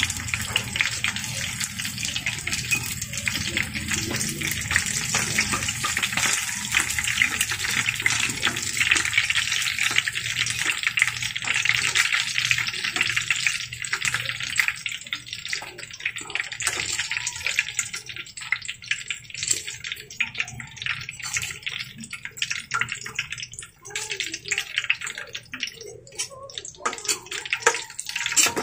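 Chicken nuggets sizzling and crackling in hot frying oil in a pan. The crackle is dense at first and thins to sparser pops over the second half as the golden-brown nuggets are lifted out with tongs.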